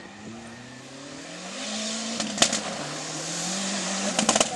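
Rally car engine approaching on a gravel stage, getting louder, its pitch rising through the gears. Sharp cracks come about halfway through and again near the end.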